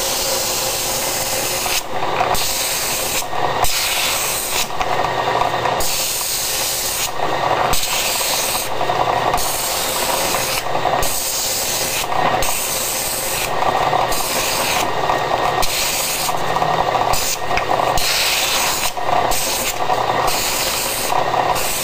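Pneumatic drum sander with a 120-grit sleeve sanding the edges of a Baltic birch plywood boomerang to smooth them, a rasping that swells and fades with each pass, about every one to two seconds, over the steady hum of the running machine.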